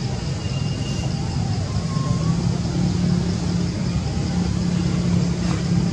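Steady outdoor background noise: a low rumble like distant traffic or an engine, with a constant high hiss and a few faint, brief whistle-like tones. No monkey call is heard.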